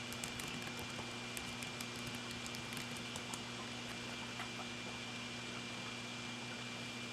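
Quiet room tone: a steady low hum and hiss with a few faint, scattered clicks.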